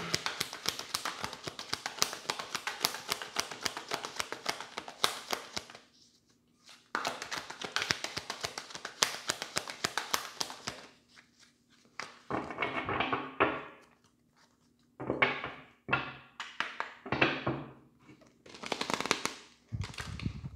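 A deck of tarot cards being shuffled by hand: long runs of rapid clicking, broken by a short pause about six seconds in, then shorter, softer bursts in the second half.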